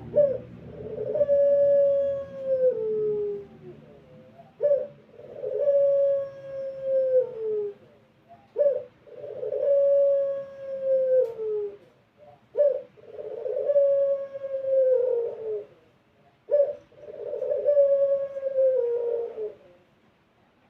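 Puter pelung (domestic Barbary dove) cooing: five long drawn-out coos about four seconds apart, each a short note followed by a long held note that drops in pitch at the end.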